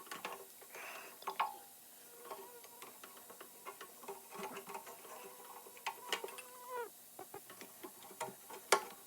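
Faint scattered clicks and light metallic ticks from a metal lathe being adjusted, over a faint machine whine, with one sharper click near the end.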